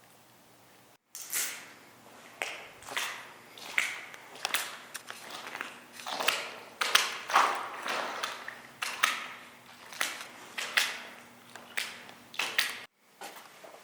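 Footsteps crunching over debris on a floor, an uneven walking pace of about one to two steps a second.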